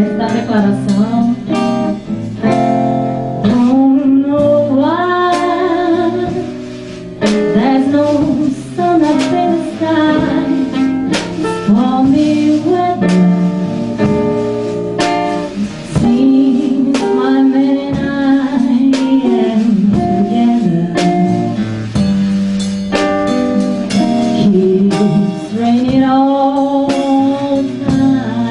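A woman singing a slow jazz-blues ballad with vibrato, accompanied by plucked acoustic guitar.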